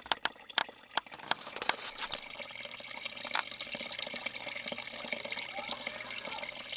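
Sink wastewater running down a leaking 3-inch main sewer drain line and spilling out of it. Quick drips and splashes come first, and about two seconds in it settles into a steady trickle.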